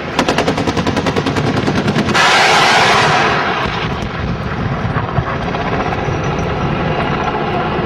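AH-1 Cobra attack helicopter's 20 mm turret cannon firing a burst of about two seconds, roughly ten rounds a second, then the helicopter's engine and rotor noise running steadily.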